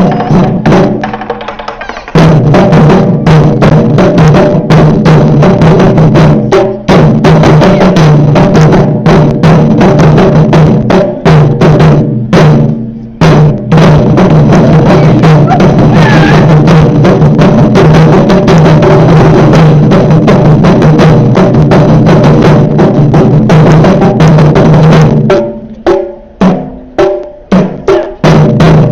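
Ensemble of Japanese taiko drums played live: a fast, dense stream of loud strokes with brief breaks about 2, 7 and 13 seconds in. Near the end the playing thins to separate, accented single hits.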